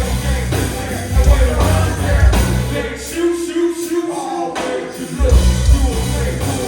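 Music with singing over a heavy bass beat. The bass drops out for about two seconds midway, leaving a held note, then comes back in.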